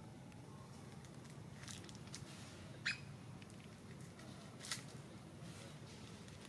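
Faint outdoor background with two brief high chirps, the louder about three seconds in and a weaker one nearly two seconds later.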